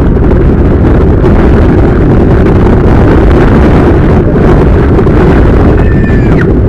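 Steady wind rushing over a helmet camera's microphone as a mountain bike speeds downhill, mixed with the rumble of its tyres on the paved street. Loud and unbroken.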